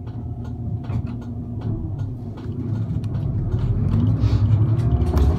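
Diesel route bus engine heard from inside the cabin, running low and then rising in pitch and getting louder from about three seconds in as the bus accelerates. Short ticks and rattles are scattered through it.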